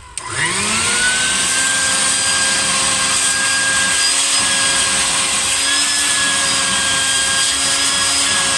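Vacuum cleaner switched on: its motor spins up with a rising whine in the first second, then runs steadily and loudly. It is sucking up rust flakes and sanding dust from a rusted car trunk floor.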